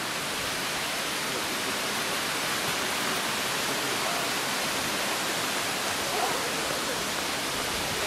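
Steady rush of a mountain stream and its waterfalls: a constant, even hiss of falling water.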